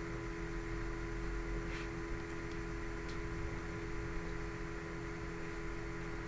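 Steady electrical hum, mains hum picked up by the recording setup, with two faint clicks about two and three seconds in.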